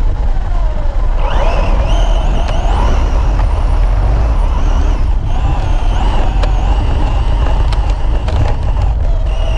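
Losi SCBE radio-controlled car's motor whining, its pitch sliding up about a second in and wavering with the throttle, over a steady low rumble, with a short drop a little past halfway.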